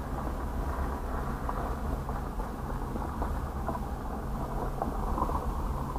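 Steady low rumble and hiss with a faint hum, heard muffled from inside a parked vehicle's cabin.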